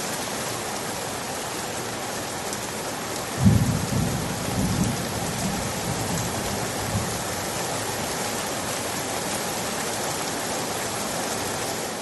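Steady rain falling, with a single clap of thunder that breaks suddenly about three and a half seconds in and rumbles away over the next few seconds.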